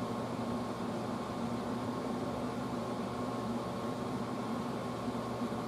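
Air conditioner running steadily: an even hiss with a constant low hum and a faint steady high tone.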